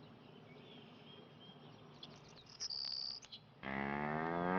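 Birds chirping faintly, then a loud high shrill chirping call with clicks about two and a half seconds in. Near the end a cow starts mooing, one long moo that is the loudest sound here.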